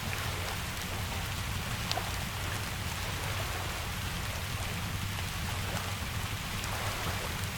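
Steady rain falling with a low rumble underneath, mixed with a crackling wood fire that gives a few sharp pops over the even hiss, the clearest about two seconds in.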